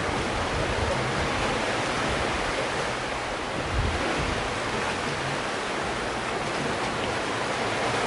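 Sea surf breaking and washing over shoreline rocks: a steady rush of waves.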